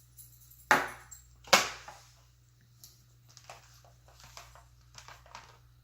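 A utensil clinking and tapping against a bowl as slime is mixed: two sharp clinks about a second in, then lighter taps and scrapes.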